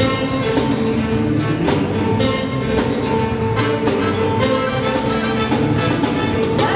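Live band playing an instrumental passage on electric guitar, bass guitar, keyboards and drum kit, with a steady beat.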